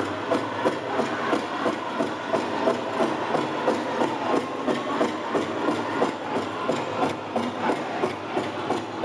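Powwow drum group playing a fast fancy shawl song: a big drum struck steadily about three beats a second, with the singers' voices over it.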